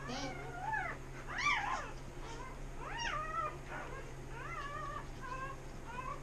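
Newborn XL American Pit Bull Terrier puppy crying in a string of short, high squeals, each rising then falling in pitch, the loudest in the first couple of seconds and fainter after that.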